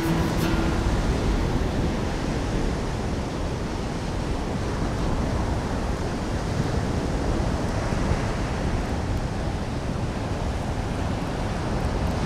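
Ocean surf breaking and washing up a sandy beach: a steady rush of waves with no distinct events.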